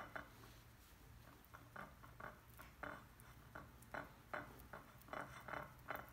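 A knife spreading mashed avocado across a slice of bread: a run of soft, faint scrapes, two or three a second, starting about a second and a half in.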